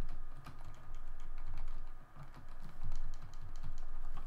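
Typing on a computer keyboard: irregular keystroke clicks with dull low knocks under them.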